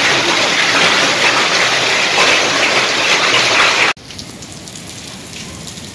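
Hail and rain pelting down as a loud, dense hiss. About four seconds in it drops to a quieter patter of separate hits.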